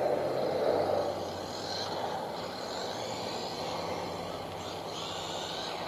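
Electric motor of a WLtoys A959 RC car whining as it drives and speeds up, rising and falling twice, over a steady outdoor rumble.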